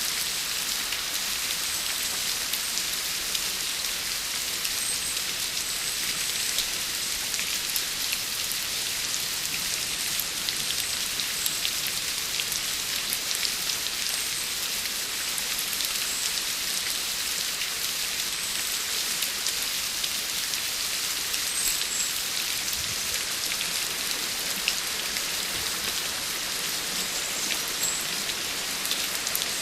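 Steady rain falling and pattering on a surface, a dense even hiss with countless small drop ticks.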